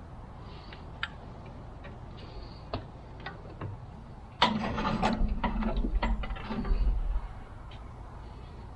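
Metal hardware and hand tools clicking and clinking while a steel rack bracket is bolted on. About four seconds in, a louder, rough mechanical noise with a low steady hum starts suddenly and runs for around three seconds.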